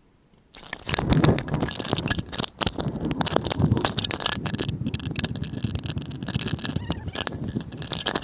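Stunt scooter riding on concrete: small hard wheels rolling and the deck and bars rattling, with scrapes and many sharp clacks. It starts suddenly about half a second in.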